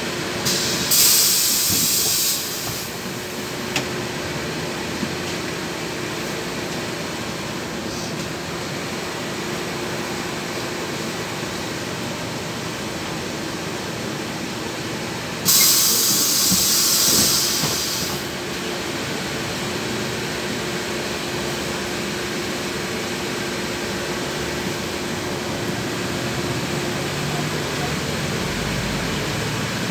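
Cabin of a LiAZ 6213.21 city bus with its diesel engine running at idle, a steady hum. Two loud hisses of compressed air come from the bus's pneumatics, one about a second in lasting over a second and one about halfway through lasting a couple of seconds. Near the end the engine note rises as the bus pulls away.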